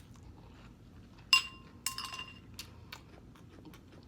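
A spoon clinking against a cereal bowl: two sharp strikes that ring briefly, a little over a second in and again about half a second later, followed by a few lighter clicks.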